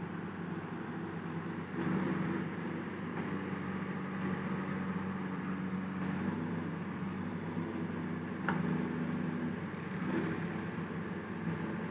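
Backhoe loader's diesel engine running under load, with the revs and loudness rising about two seconds in and again about eight and a half seconds in.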